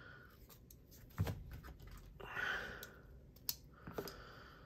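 Small clicks and taps of metal driver bits and a folding knife being handled on a tabletop, with a heavier knock about a second in. Soft breathy hissing comes twice, the stronger one about halfway through.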